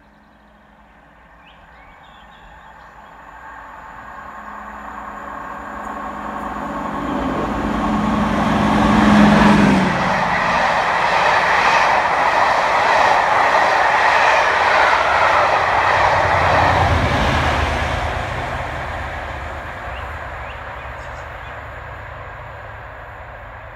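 A locomotive-hauled train of blue-and-grey passenger coaches passes through at speed. The locomotive's engine hum builds to its loudest about ten seconds in and drops in pitch as it goes by. The coaches then rush past with a regular clatter of wheels over rail joints, and a lower engine hum shows near the tail before the sound fades away.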